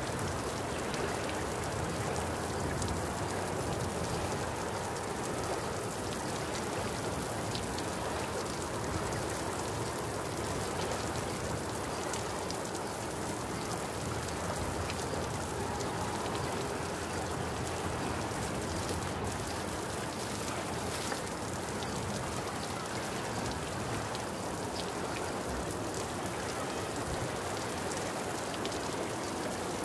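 A steady hiss like falling rain, with scattered faint ticks, holding level throughout.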